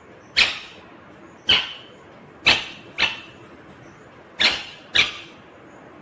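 Indian ringneck parakeet giving six short, sharp calls, some in quick pairs.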